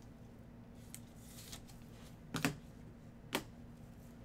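Thick trading cards handled in nitrile-gloved hands, sliding and rubbing against one another: two short scuffs about a second apart, a little past halfway, with fainter ticks before them.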